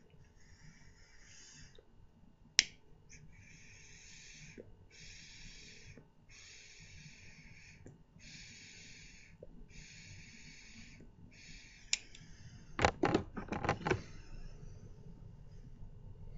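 Relighting a briar pipe: a lighter clicks, then a run of about seven short hissing puffs about a second apart as the flame is drawn into the bowl. Near the end comes a quick cluster of loud clicks and pops.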